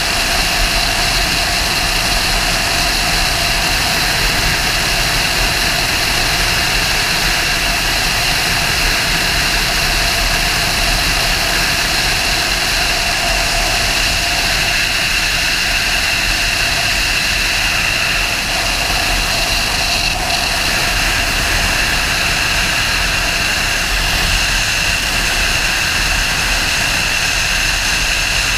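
Wind rushing over the microphone and a Honda sportbike's engine running at a steady cruising speed, with no shifts or revs.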